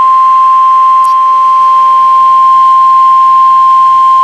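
NOAA Weather Radio warning alarm tone: a single loud, steady, high beep at about 1050 Hz, held without a break. It is the signal that a new warning broadcast is about to follow.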